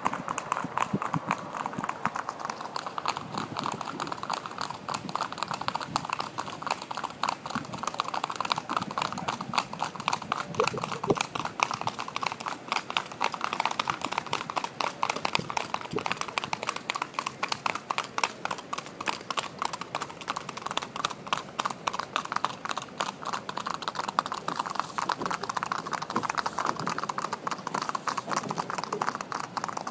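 Hooves of several Paso Fino horses clip-clopping on pavement in a rapid, even beat of many hoofbeats a second.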